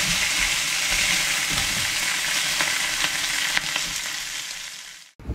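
Halved lobsters sizzling on a hot flat-top griddle plate sprinkled with coarse salt: a steady hiss with a few sharp crackles, fading out near the end.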